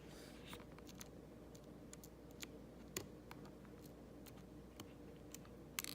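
Faint, scattered light clicks and taps of a small precision screwdriver and tiny screws on iPhone parts as they are handled, about half a dozen, the sharpest about three seconds in and just before the end.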